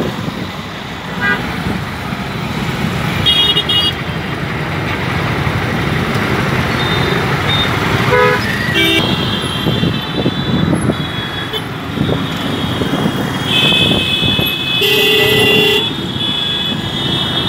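Dense city road traffic heard from a moving motorcycle: a steady rumble of engines and tyres. Vehicle horns honk over it, a few short honks early and a longer stretch of honking later on.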